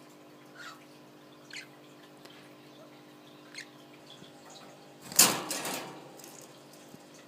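A budgie giving three short, faint chirps, falling in pitch, over a steady low hum. A much louder, harsh noise comes a little past the middle and fades within a second.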